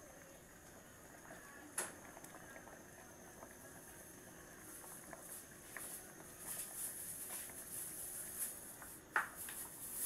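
Pot of sinigang broth bubbling on a gas stove, a faint crackling patter of bubbles that grows louder in the second half. Two sharp clicks, one near two seconds in and one near the end.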